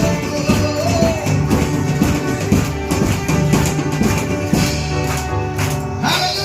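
Worship music with drums and tambourine keeping a steady beat under sustained instrumental notes.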